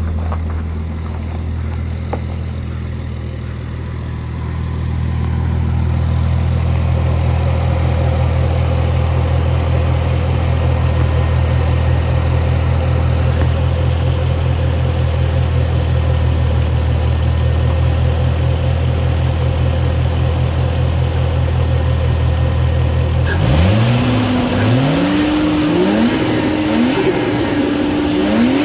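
Nissan Skyline HCR32's turbocharged RB20DET straight-six idling steadily, then, about 23 seconds in, revved in a series of quick throttle blips, with the turbo fluttering as the throttle is let off.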